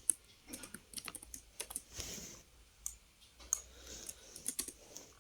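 Typing on a computer keyboard: an uneven run of keystrokes with short pauses between them.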